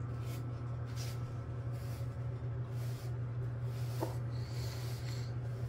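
A domestic cat purring, a steady low rumble, while being brushed, with soft swishes of the bristle brush through its fur about once or twice a second. A short squeak about four seconds in.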